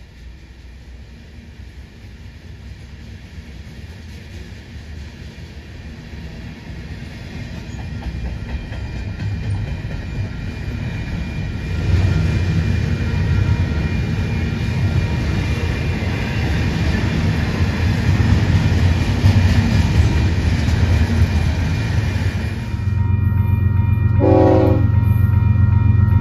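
Freight cars rolling past, covered hoppers and then double-stack container cars, with a steady rumble and clatter of wheels on rail that grows louder. Near the end a Union Pacific locomotive's air horn sounds a short blast, then another, as it approaches a grade crossing.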